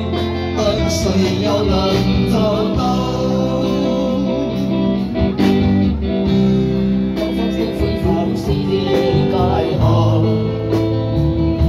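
Live amplified band music: a man singing into a microphone over electric guitars with a steady beat.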